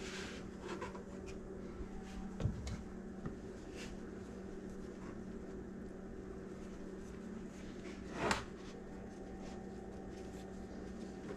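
Soft kitchen handling sounds: a spatula scraping egg-and-potato filling onto a flour tortilla, then light rustling as the tortilla is folded and rolled by hand, over a steady low hum. One louder brushing sound comes about eight seconds in.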